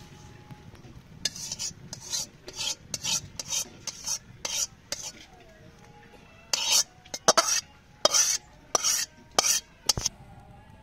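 Metal spoon scraping and stirring in a stainless-steel bowl of spiced boiled eggs, in quick short strokes: a run of about eight, a pause of about a second and a half, then about seven more.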